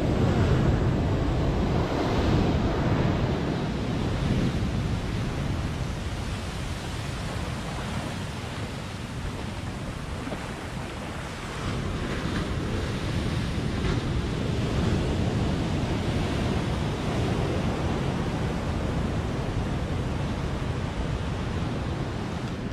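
Ocean surf breaking and washing up a sandy beach, with wind rumbling on the microphone. The surf swells louder near the start and again about halfway through.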